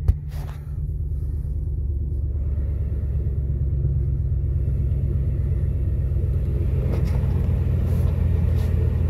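2019 Ram 1500 Classic engine, its muffler replaced by a Y-pipe, idling steadily at a cold start's raised idle: a low, even exhaust rumble heard from inside the cab. A short thump right at the start.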